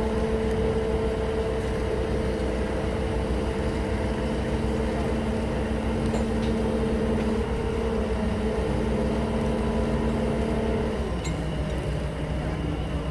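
Mobile crane's diesel engine running steadily at raised revs, dropping to a lower, slower speed about eleven seconds in.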